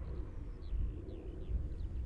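Low, steady rumble of the Audi RS 3's turbocharged five-cylinder engine, with small birds chirping over it in quick, repeated calls.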